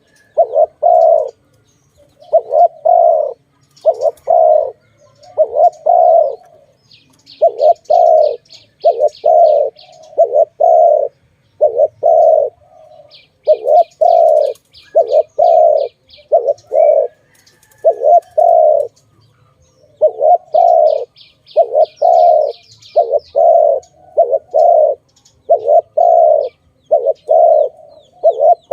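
Spotted dove cooing over and over, short low coo notes in quick groups of two to four. Three times a faint, rapid high chirping trill from a small bird sounds behind it.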